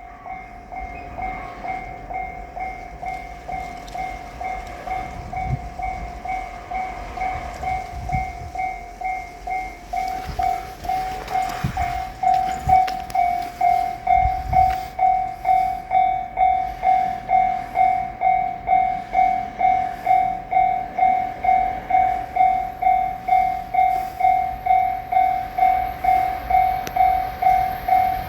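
Electronic warning bell of a Japanese railway level crossing sounding its 'kan-kan' alarm: one pitched electronic tone repeating steadily about two and a half times a second. It grows louder about twelve seconds in.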